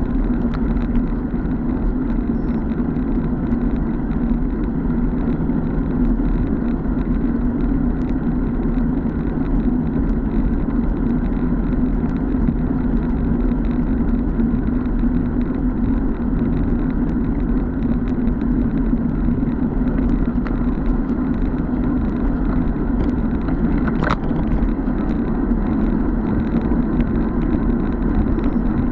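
Steady wind and road rumble on a bike-mounted camera as a road bike is ridden fast, with one sharp click late on.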